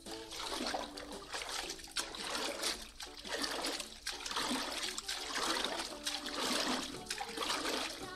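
Water sloshing and splashing unevenly in a shallow inflatable paddling pool as a baby monkey climbs in and moves through it.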